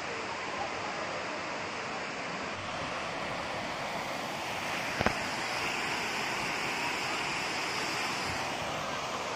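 Steady rushing of water from the waterfall, with one sharp click about five seconds in.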